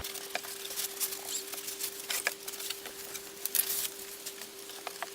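Light rustling and scattered small clicks of something being handled, over a faint steady hum.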